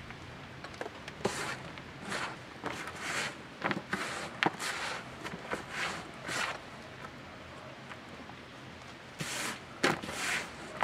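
Gloved hands scooping and rummaging through loose potting soil in a growing tub while digging out potatoes: a run of short, irregular scraping swishes with a few sharp knocks. The swishes pause for about two seconds, then start again near the end.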